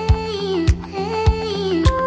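Background music: a melody over a steady beat, about one beat every 0.6 seconds.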